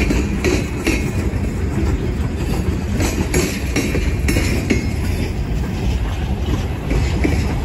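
Freight train's tank cars and covered hoppers rolling past: a steady low rumble of steel wheels on rail, with irregular clicks and clanks as the wheels cross the rail joints.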